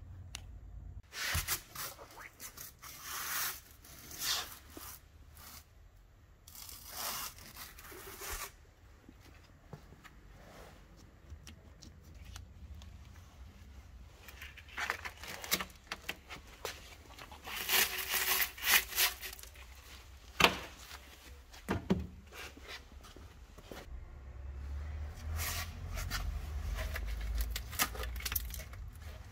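Irregular bursts of rustling and scraping, like material being torn or rubbed, from handling around a stripped, rusty car body.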